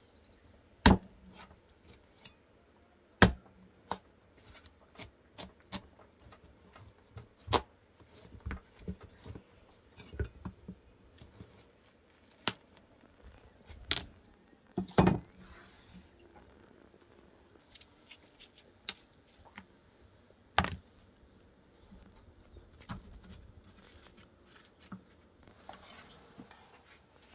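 Kitchen handling noises during food preparation: irregular sharp clicks and knocks of utensils and dishes, a few much louder than the rest, with faint rustling between.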